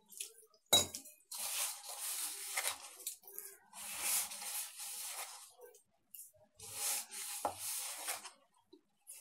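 Hands kneading crumbly, oil-rich flour dough in a plastic bowl: three spells of rubbing and crumbling noise. A sharp knock comes about a second in and another near the end.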